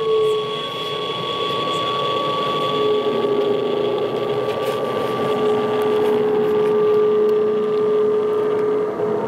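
Electronic drone of several held steady tones over a dense hiss, mixed from satellite radio signals. The lowest tone slides down just at the start and holds until near the end; the highest tone fades about three seconds in.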